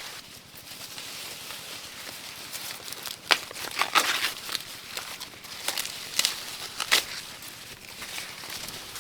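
Dry plant material rustling and crackling, with several sharp snaps, the loudest from about three to seven seconds in.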